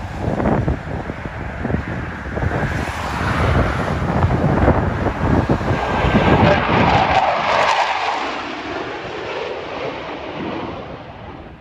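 Four F/A-18 Super Hornet jets flying over in formation: a loud jet rush builds to its peak about seven seconds in, then drops in pitch and fades as they pass.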